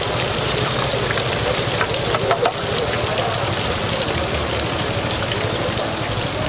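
Food frying in hot oil, a steady sizzle, with a few sharp clicks about two seconds in.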